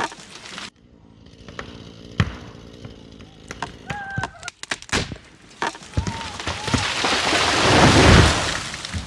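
Poplar trunk cracking with sharp snaps as the tree goes over, then a long rushing crash of the crown and branches hitting the ground, building to its loudest about eight seconds in and dying away.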